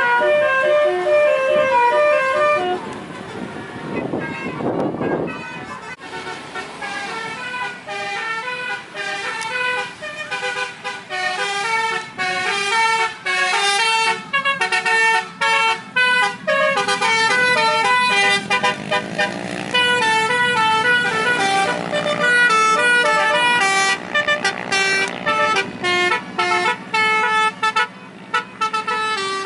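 Telolet horns playing fast stepped multi-note melodies, the notes changing several times a second. A short low rising sweep comes about four seconds in.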